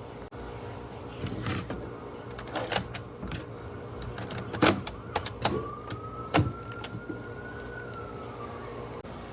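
Nerf Elite 2.0 Double Punch blaster being handled and fired: a series of sharp plastic clacks and pops, the loudest about four and a half seconds in. A faint thin tone holds for about three seconds after the last shots and drops slightly in pitch before it stops.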